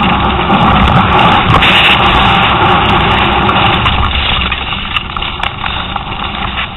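Ride noise from a camera on a downhill mountain bike racing over rough dirt and rock: wind buffeting the microphone with a heavy rumble, and the tyres and bike rattling, with scattered sharp knocks. It is loudest for the first four seconds or so, then eases a little.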